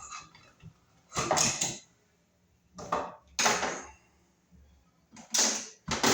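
Short scraping and clattering handling noises, about five in six seconds, from hand tools and wiring being worked at an electrical outlet box.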